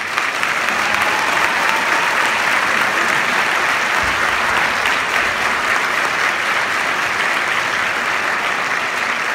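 Audience applauding, a dense, steady clapping that holds at an even level.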